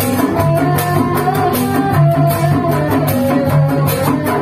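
Sundanese kuda renggong procession music: a melody over a steady beat of drums and clashing hand cymbals.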